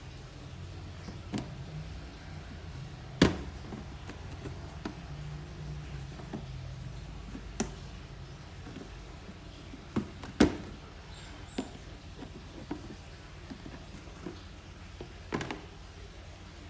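Clear plastic storage tub's snap-on lid being unclipped and pulled aside: a handful of separate sharp plastic clicks and knocks, the loudest about three seconds in and two close together around ten seconds in.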